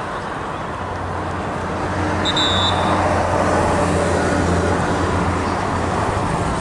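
Road traffic noise with a motor vehicle's engine hum that grows louder about a second in and holds steady. A brief high tone sounds about two and a half seconds in.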